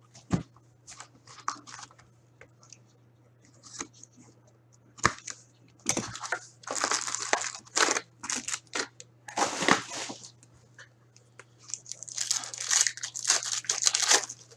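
A 2019-20 Upper Deck Artifacts hockey card hobby box being torn open and its foil packs handled: bursts of tearing and crinkling of cardboard and foil wrapping, with a few sharp knocks of the box on the table.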